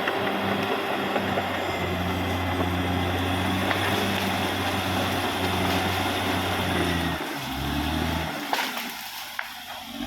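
Caterpillar D6R XL bulldozer's diesel engine running steadily. About seven seconds in, the engine note shifts and drops, and a sharp clack follows about a second later.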